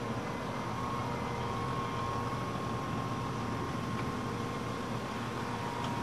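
Combine harvester running steadily as it cuts grain: a constant machine drone with a steady high whine over it.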